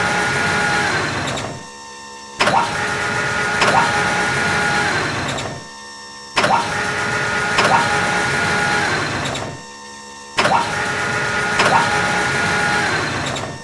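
Deep drilling machine running in a repeating cycle: about three seconds of loud mechanical noise with a steady whine, then a short drop in level, restarting each time with a sharp click, roughly every four seconds.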